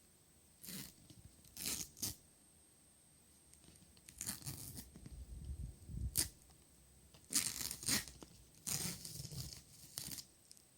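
Packaging being torn open by hand in a series of short, irregular ripping bursts, with one sharp snap about six seconds in.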